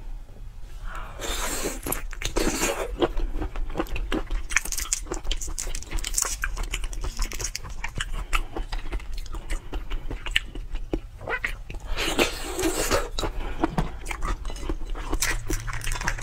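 Close-miked eating of a large cooked shrimp: wet biting and chewing of the tail meat, with a dense run of small clicks and crackles. Near the end the shell crackles as the head is pulled apart.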